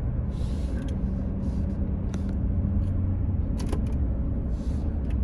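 Steady low rumble of a car, heard from inside the cabin, with a few brief hissy swells and faint clicks.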